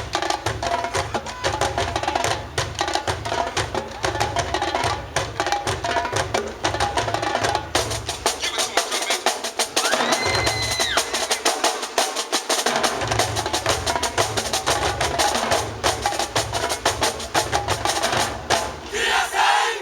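Marching band drumline playing a fast cadence, with rapid snare strokes over deep bass-drum pulses; the low drums drop out for a few seconds midway while a single high tone is held for about a second.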